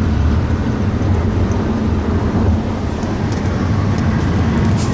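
Steady low road and engine rumble inside a moving car's cabin at highway speed, with a few faint high ticks near the end.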